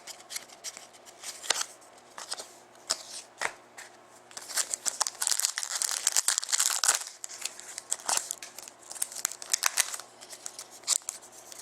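A trading-card pack wrapper being torn open and crinkled, with the light clicks and rustles of cards being handled; the crinkling is busiest around the middle.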